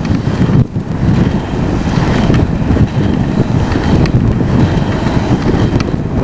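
Heavy wind buffeting on the microphone from skating at speed, over the steady rolling rumble of inline skate wheels on asphalt.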